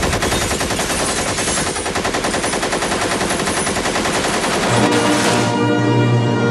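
Rapid, sustained automatic gunfire, a machine-gun sound effect that runs without a break and cuts away about five and a half seconds in. Choral and orchestral music comes in around five seconds in and takes over.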